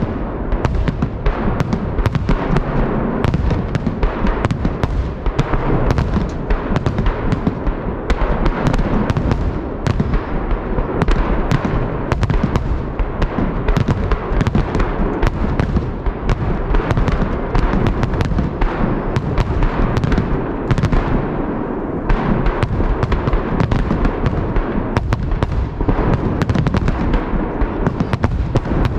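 Large festive fireworks salute: a continuous barrage of overlapping shell bursts and bangs, several a second, over a constant low rumble.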